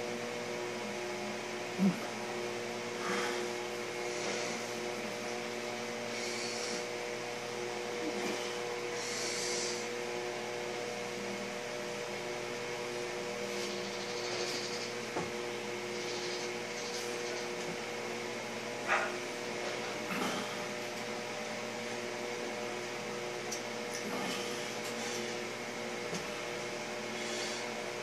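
Steady mechanical hum with several fixed pitches, like a fan or appliance running, with a sharp knock about two seconds in and a few fainter knocks and brief hisses scattered through.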